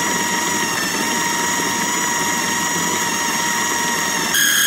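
Food processor motor running steadily, chopping soaked chickpeas with lemon juice and olive oil into a coarse mash. Near the end its whine jumps suddenly higher in pitch and gets louder.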